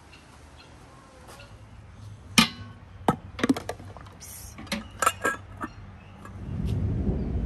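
Glass jars clinking against each other and the pot as they are handled in a big pot of hot water: a series of sharp clinks over a few seconds, the first the loudest. A low rumbling noise rises near the end.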